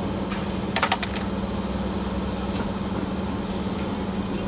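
CNC spring forming machine running with a steady hum, and a quick cluster of sharp clicks about a second in.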